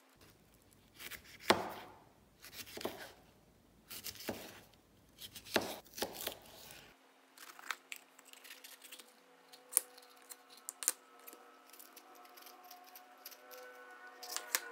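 Chef's knife slicing through bell peppers on a plastic cutting board. There are five sharp cuts, each with a crunch, in the first half, then lighter, quieter clicks of the blade on the board.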